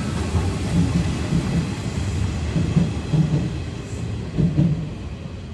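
Kintetsu rapid express train running on the rails: a low rumble with wheel clacks over rail joints, often in pairs, fading toward the end.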